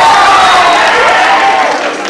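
Audience cheering and clapping in a dense crowd noise, with a raised voice gliding up and down in pitch over it; the noise falls away near the end.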